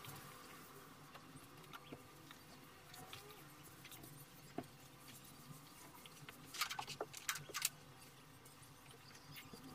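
Faint rubbing of a cloth being wiped over a glass-ceramic hob and kitchen worktop, with scattered light clicks and a short cluster of knocks and rustles about two-thirds of the way through.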